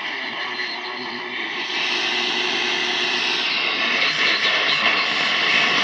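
Noisy radio reception from a Zenith Trans-Oceanic 3000-1 radio's speaker: a steady rushing hiss with faint steady tones in it, growing louder toward the end.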